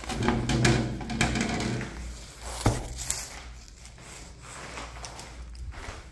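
Footsteps on a hard floor, with a low muffled sound over the first two seconds and one sharp click about two and a half seconds in.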